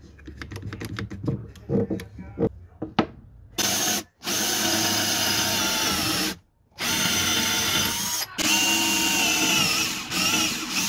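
A one-handed bar clamp clicking as it is squeezed tight, a quick run of clicks, followed from about three and a half seconds in by a Parkside cordless drill boring into plywood. The drill runs in several long bursts, with short pauses near four seconds, a second or so before the middle of the drilling, and again shortly after.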